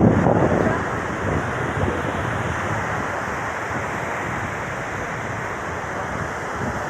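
Ocean surf washing with wind buffeting the microphone, loudest right at the start and then steady.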